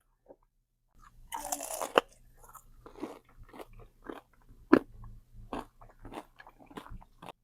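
Close-miked biting and chewing of food: a loud crunchy bite about a second in, then steady chewing with many short mouth clicks.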